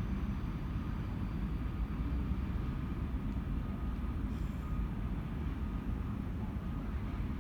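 Train running past, a steady low rumble with no clear start or stop.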